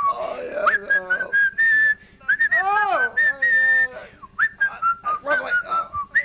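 A person whistling a tune in held notes with slides between them; about two and a half seconds in, a lower swooping sound rises and falls.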